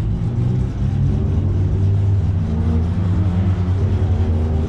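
Road traffic close by: a steady low engine sound, with a faint engine tone rising slowly from about two seconds in as a vehicle speeds up.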